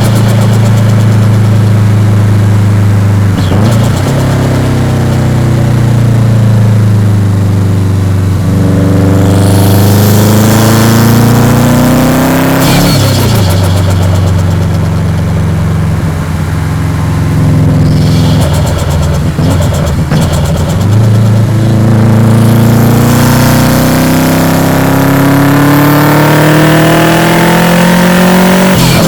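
Subaru Impreza WRX's turbocharged EJ207 flat-four pulling hard through the gears: engine pitch climbs steadily, then falls sharply at each gear change, several times over. Brief turbo hiss and flutter come as the throttle lifts between gears.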